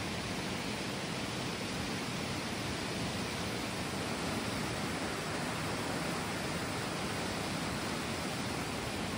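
Steady rush of running water in a stony hot-spring stream, an even hiss with no pauses or separate splashes.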